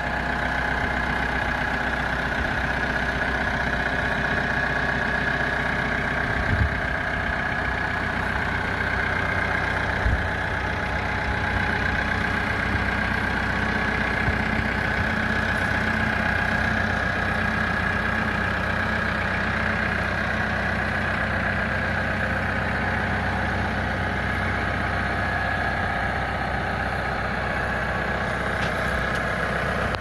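Zetor Major 85 tractor's diesel engine idling steadily.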